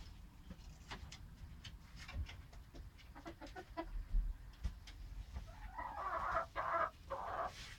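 A chick pecking at crumbles in a feed bowl, a scatter of light ticks, while a hen clucks several short times from about six seconds in.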